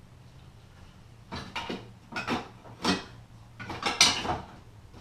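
Small metal parts of a Motorcraft 2100 carburetor being handled and fitted in place: a run of short clinks and rattles starting about a second in, the loudest about four seconds in.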